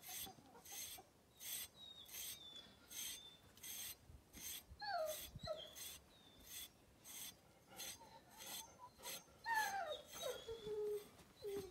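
Metal-toothed grooming brush raking through a large dog's thick shedding coat in short, repeated strokes, about two a second. A few short falling whines come in about halfway through and again, loudest, near the end.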